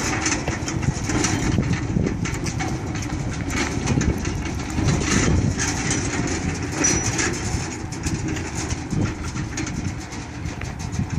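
Husqvarna pedal tractor and its towed cart rolling over asphalt, with a steady rumbling clatter of wheels and rattling parts that grows a little quieter near the end as it moves away.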